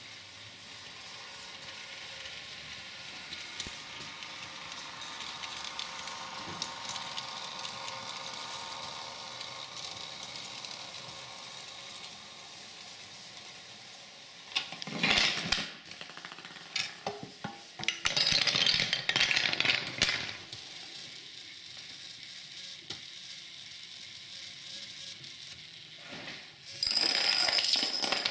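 An electric model ICE train runs along its track with a steady motor hum and wheel clicks. Then the chain-reaction machine goes off in loud bursts of rattling and clattering: a ball and marbles rolling and dropping, and wooden dominoes and plastic parts toppling and knocking. The biggest bursts come about halfway, around two-thirds of the way, and at the very end.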